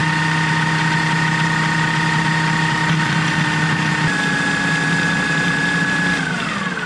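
Electric food processor motor running steadily while chopping cranberries and apple, its pitch dipping slightly about four seconds in, then winding down in a falling whine after it is switched off near the end.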